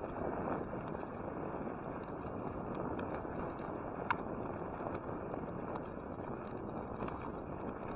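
Bicycle rolling on asphalt: steady noise of tyres and moving air on a bike-mounted camera's microphone, with light rattling clicks from the bike and one sharper tick about four seconds in.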